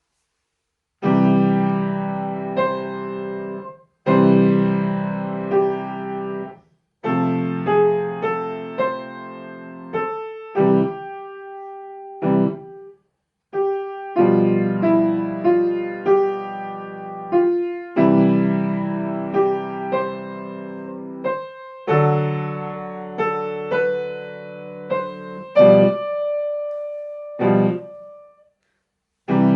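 A piano student playing a simple lesson piece a little slowly, in short phrases separated by brief silences, with chords under a single-line melody.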